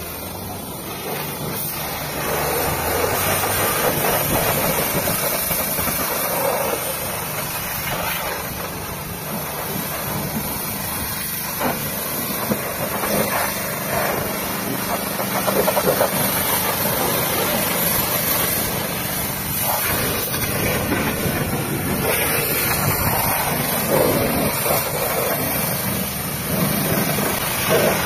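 A jet of water from a hose wand spraying onto a pickup truck's metal body and the wet ground, a steady hiss that swells as the spray moves, with a steady motor hum underneath.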